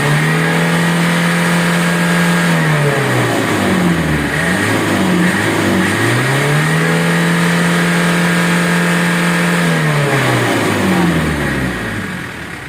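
Vehicle engine revved hard twice. Each time the note climbs quickly, is held high for about three seconds, then falls back toward idle. It is being revved to blow out the tailpipe while the exhaust is cleaned of soot after a smoke-belching apprehension.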